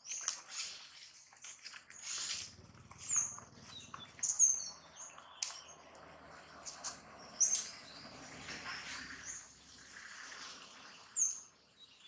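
Short, high chirping calls, several spread through the stretch, over quick rustles of leaves and branches as a macaque climbs through the tree. A faint low hum runs underneath from about two to nine seconds in.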